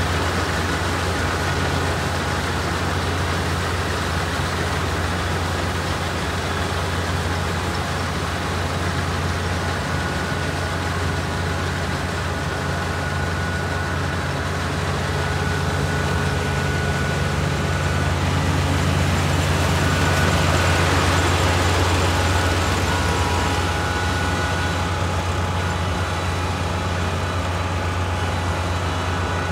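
Kubota ER448 four-row, 48-horsepower combine harvester running steadily with its diesel engine while reaping rice, a constant low drone with machinery hum above it. It grows louder for a few seconds around two-thirds of the way through, then eases back.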